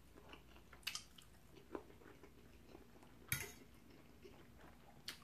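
Metal fork clinking and scraping on a dinner plate: four short sharp clinks, the loudest a little over three seconds in, with faint chewing between them.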